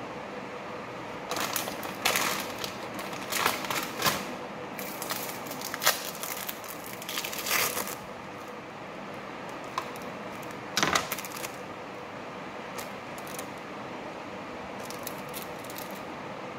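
Hands handling a bread roll and sandwich fillings on a cutting board: bursts of rustling and crinkling with light taps, mostly in the first half and once more past the middle, over a steady low background hum.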